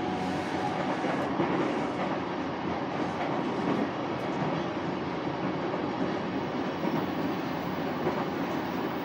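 Interior running noise of a JR East E233-series Keihin-Tohoku Line commuter train at speed: a steady rumble of wheels on rail heard from inside the passenger car.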